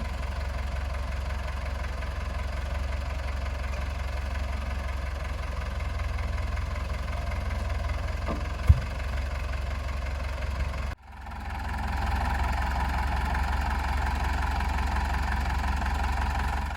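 Loader tractor engine running steadily, with a single sharp knock about nine seconds in. The sound breaks off for a moment near eleven seconds, then the engine runs on.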